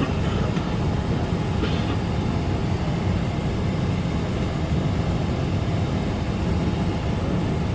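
Steady low rumble inside an airliner cabin as the aircraft taxis with its engines at idle, with a faint click about two seconds in.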